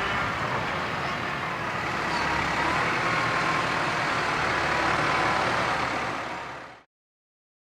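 Heavy harvesting machinery running steadily: the diesel-driven potato harvester and tractors working the field, with a continuous engine and mechanical drone. The sound fades out about seven seconds in and gives way to silence.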